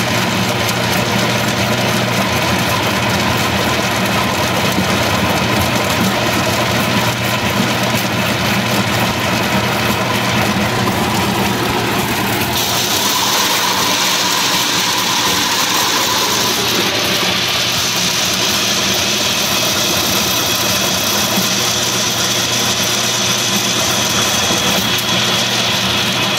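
Açaí pulping machine running steadily, its beater churning the fruit with water to separate pulp from the seeds, with a constant machine hum. About halfway through, a hiss joins the hum.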